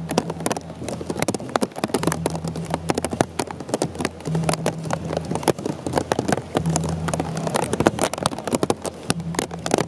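Heavy rain drumming on an umbrella held close over the microphone: a dense, irregular patter of sharp drop hits. A short low hum sounds about every two seconds.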